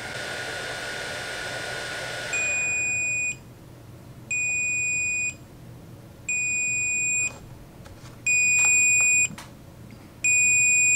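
LEEL ozone CPAP cleaner finishing its cleaning cycle: its air pump runs, then stops about two seconds in, and the cleaner beeps five times, each beep about a second long and two seconds apart, the last two louder. The beeps signal the end of the cycle and the automatic shut-off.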